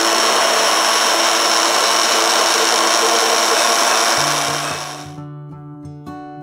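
Handheld immersion blender running at high speed in a glass jar, emulsifying egg yolk as hot melted butter is drizzled in for hollandaise: a steady high motor whine. It fades out about five seconds in as background music comes in.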